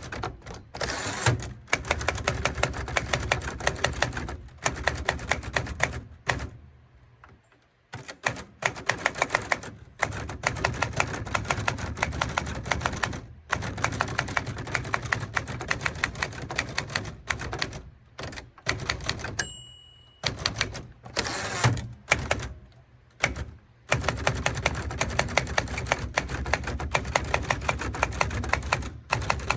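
Typewriter being typed on: runs of rapid keystrokes broken by short pauses, with a brief ringing tone about two-thirds of the way through.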